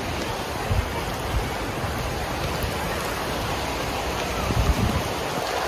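Very heavy rain pouring down, a dense steady hiss, with a few low bumps about a second in and again near the end.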